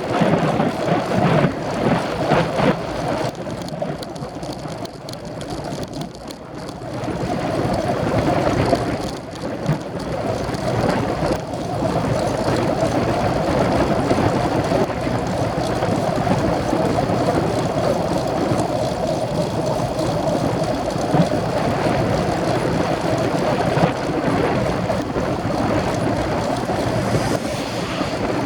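Steady wind rushing over the microphone while riding a road bike, dipping for a few seconds and then rising again.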